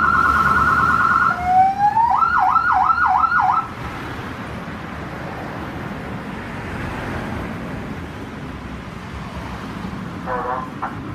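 Electronic emergency siren sounding a fast warble, then a rising sweep into quick repeated rising yelps of about three a second, cutting off after about three and a half seconds. Steady background noise follows, with a short pitched chirp near the end.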